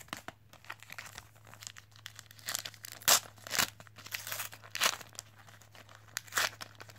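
Plastic wrapper of a Panini Premier League trading card pack being torn open and crinkled by hand: irregular crackles and rips, the sharpest ones in the second half.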